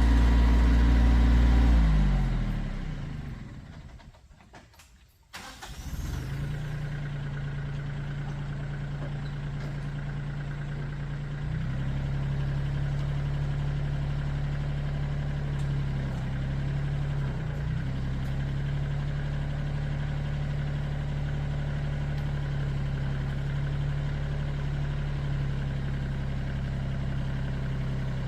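A Kioti compact tractor's diesel engine slows and stops. After about a second of near silence, an engine starts abruptly and runs steadily, picking up speed slightly partway through.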